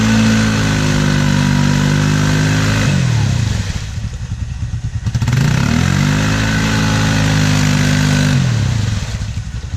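ATV engine revved hard twice, each burst rising quickly, held high for about three seconds, then dropping away, with a short lull between: repeated full-throttle attempts to power through a mud hole.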